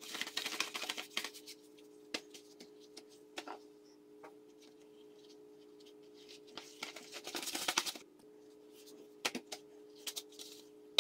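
Thin, floury sheets of rolled dough being lifted, shaken and folded by hand: soft rustling and flapping with scattered light taps. The rustling is loudest in the first second or so and again around seven to eight seconds in.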